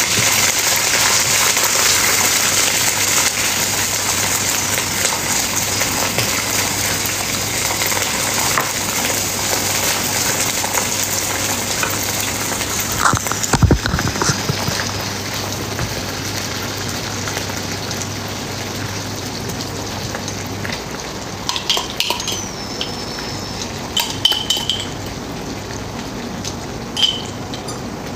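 Butter, garlic and pesto sauce sizzling in a stainless steel frying pan on an induction hob, the sizzle dying down from about halfway, with a knock about halfway through. Near the end come a few light clinks of utensils and glass.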